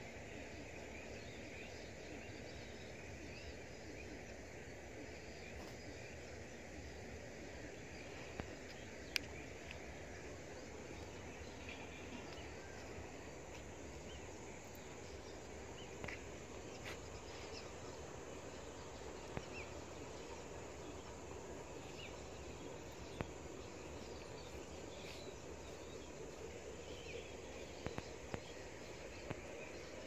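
Evening outdoor ambience: a steady hiss of insects chirping, with a few faint bird calls and a handful of sharp clicks.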